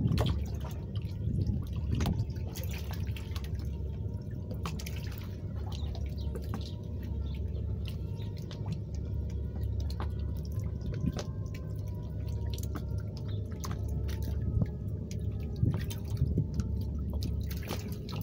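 Sea water lapping and dripping against a pier and boat hull, with many irregular small ticks and splashes over a steady low rumble.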